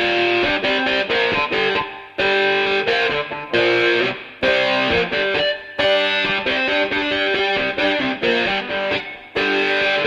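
Background music: a distorted electric guitar playing a rock riff, with a few brief breaks between phrases.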